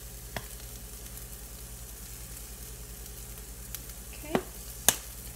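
Chopped cauliflower and vegetables sautéing in a pan, a steady low sizzle, with a few light clicks and taps, the sharpest one just before the end.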